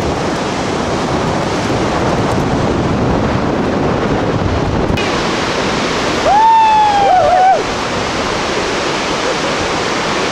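Steady rushing wind noise buffeting the camcorder microphone. About six seconds in, a single high, drawn-out tone rises, holds for just over a second and falls away.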